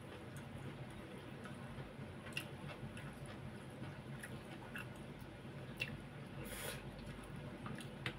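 Faint eating sounds: a person chewing roast duck and rice with small mouth clicks, while a metal spoon ticks and scrapes against a plastic food container. One brief, louder scrape or rustle comes about two-thirds of the way in.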